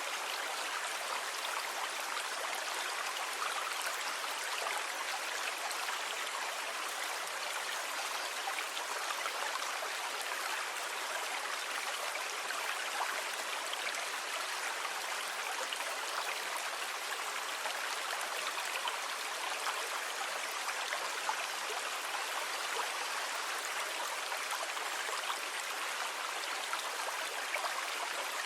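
Sea water washing steadily: an even, constant hiss of moving water with no separate wave crashes standing out.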